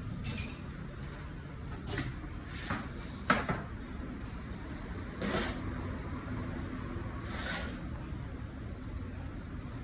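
Scattered knocks and clatters of tyre-changing work on a car, six short separate sounds with the sharpest about three seconds in, over a steady low hum.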